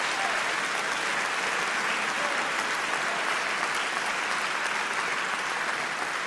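Audience applauding steadily, slowly dying down near the end.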